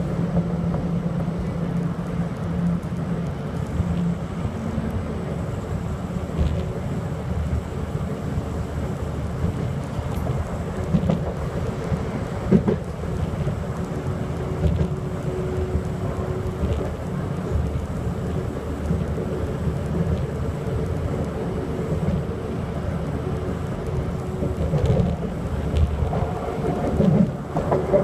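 Steady running rumble of a train heard from inside the carriage, wheels on track with a low hum, and a few brief knocks along the way.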